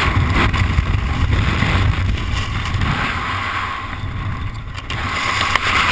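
Wind buffeting a skydiver's camera microphone as the parachute opens: the loud freefall rush gives way to a lower, gustier rumble, easing about four seconds in and picking up again near the end.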